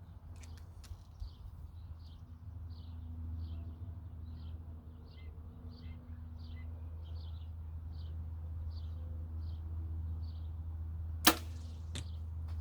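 Compound bow shot: a sharp crack as the string is released, then a smaller thud about 0.7 s later as the arrow strikes the distant target. Before it, a bird chirps repeatedly, about twice a second.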